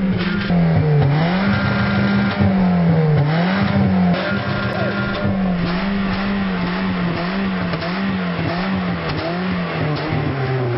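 Small hatchback's engine being revved over and over, its pitch swinging up and down. It starts in slow swings of about a second each, moves to quicker blips about twice a second, and near the end settles to a lower, steadier note.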